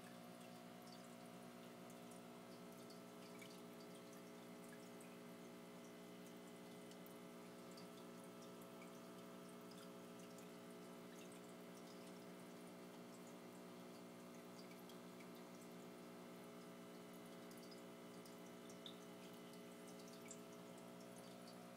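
Faint goldfish aquarium sounds: a steady low hum with scattered tiny drips and ticks of water.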